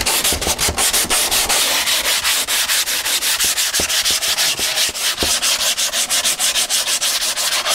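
80-grit sandpaper rubbed by hand over the cured fiberglass-and-resin skin of a model airplane wing, in rapid, even back-and-forth strokes: the final resin coat being sanded flat and smooth.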